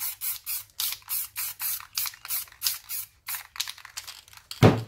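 Aerosol spray paint can sprayed in quick short bursts, about four a second, with a brief pause around three seconds in. A single loud knock comes near the end.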